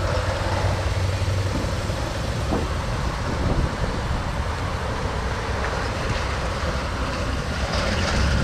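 A car running steadily: a constant low engine hum under an even wash of road or traffic noise.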